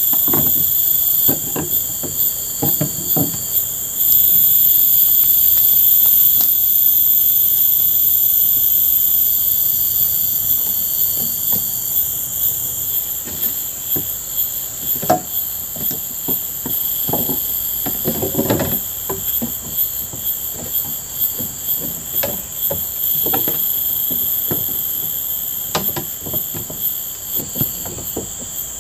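A steady, high-pitched chorus of insects, several tones droning at once. Over it come irregular hollow knocks and clunks of green bamboo poles being set down and shifted onto a stack of poles, bunched in a few spells.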